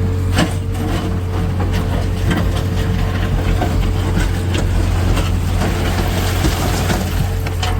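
A Tata Hitachi Shinrai backhoe loader's diesel engine running steadily, with irregular sharp knocks and clatter of stone from the breaker work.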